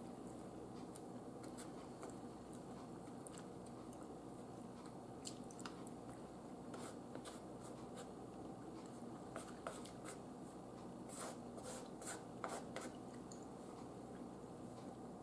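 Quiet eating: chewing with small clicks and scrapes of a metal fork against a paper plate over a steady low hum, the clicks thickest about nine to thirteen seconds in.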